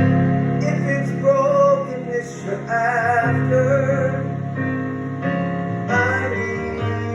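Live gospel music: a singer's wordless, wavering vocal line over held keyboard chords that change every second or so.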